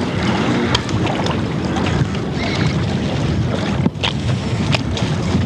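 Steady wind buffeting the camcorder microphone, with scattered short clicks from handling.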